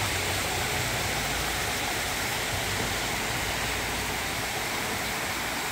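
A mountain stream rushing: a steady, unbroken roar of flowing water.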